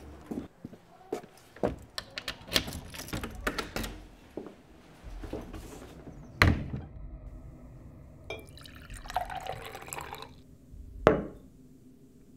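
Small clicks and jangles over the first few seconds, then a single loud thud about six seconds in. Later, a drink is poured from a bottle into a glass tumbler for about two seconds, followed by a sharp knock.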